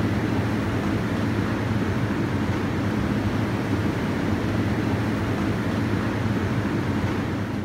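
Steady background hum and hiss of a shop interior, unchanging, with no single event standing out.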